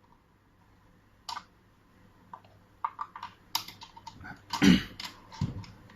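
Parts of a mechanical push-button door lock being handled and fitted onto a door: scattered light clicks and knocks, the loudest a dull knock a little before the end.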